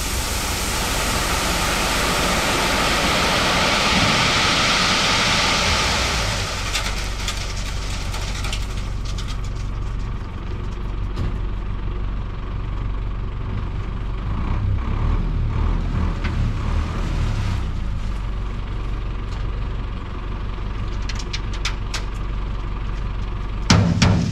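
Truck engine running steadily, with a loud rushing hiss over the first six seconds and scattered clicks and knocks; the truck delivers sand and crushed-stone screenings.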